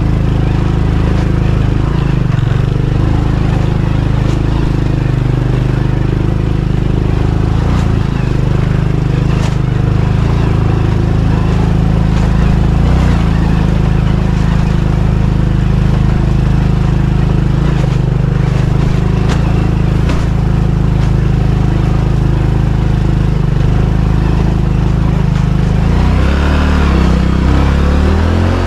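Motorcycle engine running steadily under load on a rough dirt track. The engine note changes near the end.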